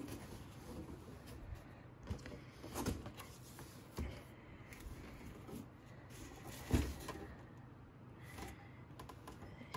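Cardboard box being opened by hand, its lid and flaps folded back, with soft rustling and a few knocks, the loudest about seven seconds in.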